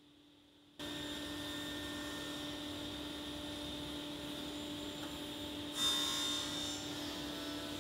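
Steady electrical hum of woodworking machinery at a spindle moulder, starting abruptly about a second in. Around six seconds in a brief, louder scrape comes as the machine's crank handle is turned.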